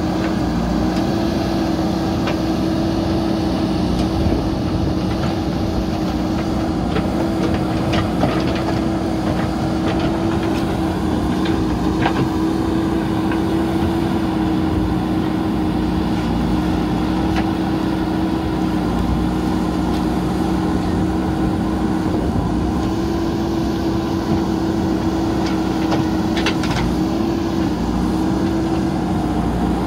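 JCB 3DX backhoe loader's diesel engine running steadily under working load as the backhoe digs, its pitch dipping slightly now and then. A few faint knocks of the bucket against brick rubble come through, about a third of the way in and again near the end.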